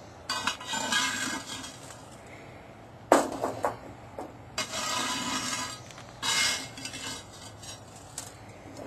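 Charcoal briquettes being picked off the lid of a 14-inch cast-iron Dutch oven: several separate bouts of metal scraping and clinking on the lid, one sharp clank about three seconds in.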